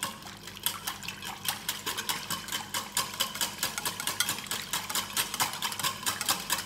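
Wire balloon whisk beating an oil-and-lemon mustard dressing in a glass bowl: fast, steady clicking of the wires against the glass as the liquid is stirred, several strokes a second.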